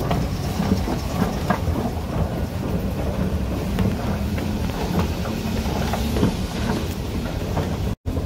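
Escalator running: a steady low rumble and hum with light clattering of the moving steps. The sound drops out for an instant near the end.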